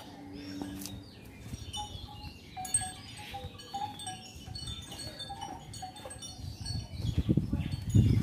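Birds chirping and calling repeatedly. Near the end comes a louder rustling and scraping, typical of soil being scooped and handled by hand.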